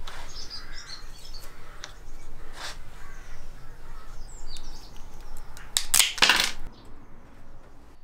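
Small clicks and rattles of bicycle parts being handled as a lever is fitted to a carbon handlebar, with birds chirping in the background. About six seconds in there is a louder noisy rush lasting about half a second.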